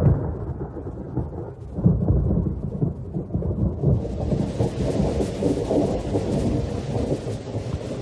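Thunderstorm: thunder rolls and rumbles, with a loud fresh roll about two seconds in. The steady hiss of heavy rain sets in about halfway through.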